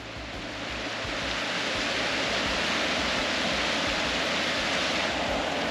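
Swollen, muddy river water rushing and churning over sand and rocks in shallow rapids, with a steady, full rushing noise close to the microphone.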